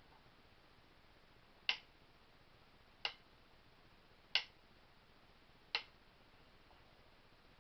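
Four small, sharp clicks spaced about a second and a half apart, from hard parts of a Winchester 1977XS air pistol being handled and fitted during reassembly.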